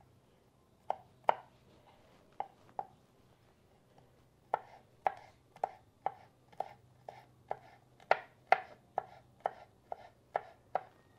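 Kitchen knife chopping garlic cloves on a wooden cutting board. A few scattered knocks come first, then from about four seconds in a steady run of about two strikes a second.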